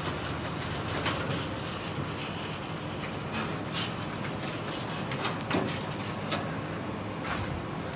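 Casters of a wheeled dolly rolling over a concrete floor as a stripped VW Beetle body shell is pushed along. A steady rolling rumble runs under a few sharp knocks and rattles from the loose sheet-metal body, the loudest a little past the middle.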